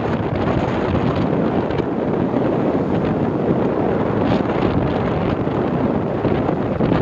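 Steady wind rushing over the microphone of a moving motorcycle, with the bike's running noise blended in underneath.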